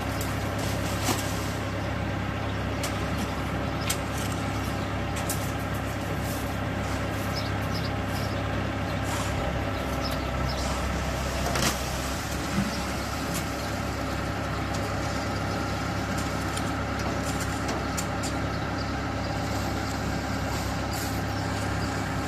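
Luton LT-1.8 self-loading concrete mixer truck's diesel engine running steadily, with a few short sharp knocks and clanks, the loudest about halfway through.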